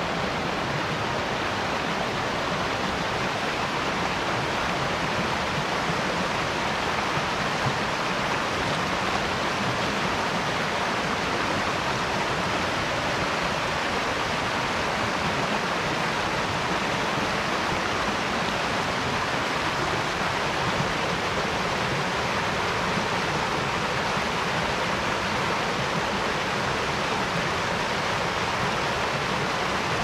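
Small creek cascading down a rocky channel: a steady rush of tumbling water.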